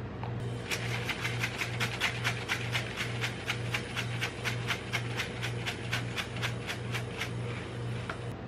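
Sugar sprinkles being shaken out onto a steel ice-cream cold plate: a rhythmic rattling, about four shakes a second, that stops about a second before the end. A steady low hum lies underneath.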